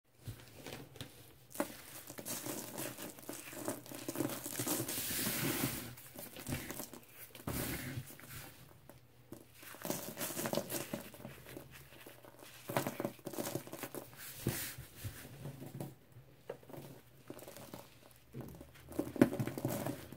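A hand squeezing and crumbling powder-covered chalk, the lemon Comet, baking soda and oxy cleaner crunching and crackling between the fingers and sifting down. It comes in irregular bursts, loudest about five seconds in and with one sharp crunch near the end.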